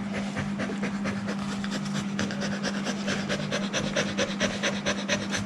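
A nursing black Labrador bitch with mastitis panting quickly and evenly, the breaths growing more distinct about two seconds in, over a steady low hum.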